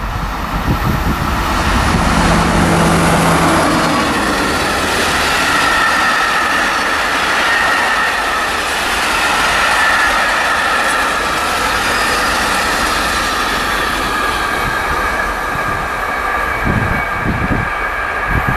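A train passing close by on the track: a steady rush of wheels on rails with high, wavering squealing tones over it through the middle.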